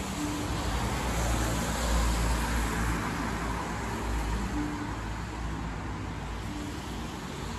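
Street traffic noise, a car passing with a swell about two seconds in and easing after, over a few faint, muffled marimba notes from inside the shop window.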